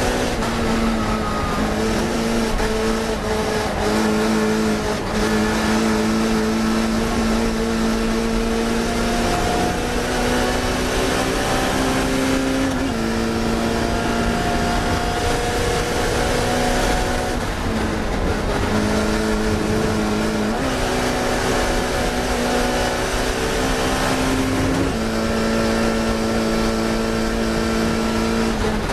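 Classic Mini race car's four-cylinder engine held at high revs under racing load. Its note climbs slowly, then drops sharply several times as the gears are changed.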